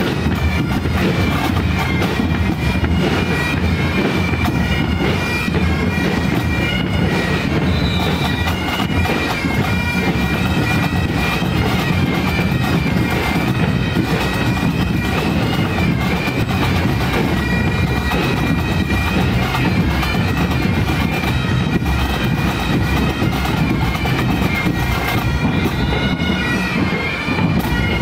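Pipe band playing: bagpipes sounding a tune over their steady drone, with bass and side drums beating.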